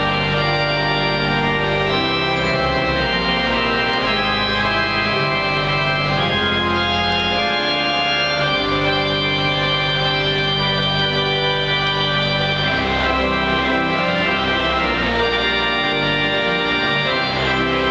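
Pipe organ playing full sustained chords, its low bass notes, played on the pedals, shifting every second or few.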